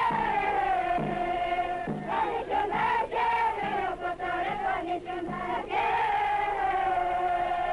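A group of voices singing long, held notes together over a steady low beat a little under a second apart. The beat stops about five and a half seconds in while the singing goes on.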